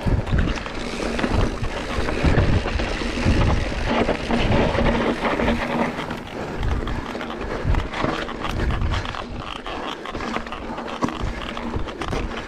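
Footsteps of someone running over rough ground, irregular thuds and crunches, with wind and rustling buffeting a body-worn microphone.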